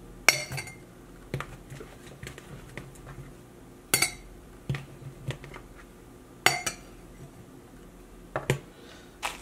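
A metal spoon scooping fruit and clinking against a glass jar as it is tapped in: four sharp clinks with a short ring, a few seconds apart, with fainter taps between.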